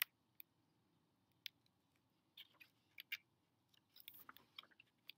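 Near silence broken by scattered faint clicks and soft rustles from a hardcover picture book being handled, with the sharpest click right at the start.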